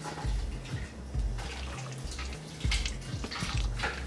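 Wet squelching and splashing as the cooked chicken bones and vegetables of a chicken paitan broth are pressed with a spoon in a mesh strainer, the broth draining and dripping into the pot below, with several louder splashes in the second half.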